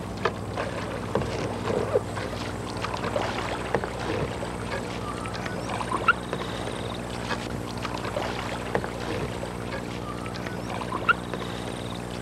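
Canoe paddles working flat water in reverse strokes, with small splashes and drips and a few sharp knocks, over a steady low hum.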